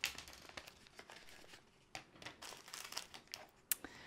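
Thin plastic pouch crinkling and rustling in the hands as items are taken out of it, in irregular short crackles.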